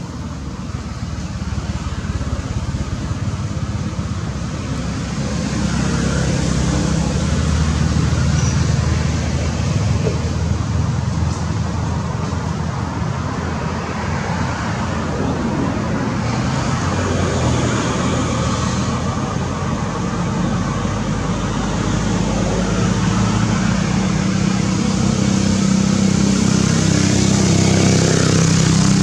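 Motor vehicle engines running, a steady low hum with road noise that grows louder over the first few seconds and again near the end.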